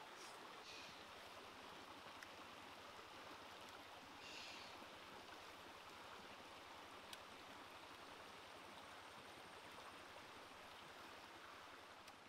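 Faint steady rush of a shallow stream flowing over rocks, with a few faint clicks.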